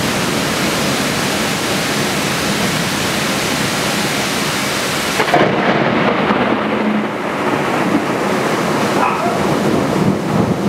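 Heavy rain falling: a loud, steady hiss. About five seconds in, its bright upper part cuts off abruptly, leaving a duller rain sound with a few brief, sharp sounds over it.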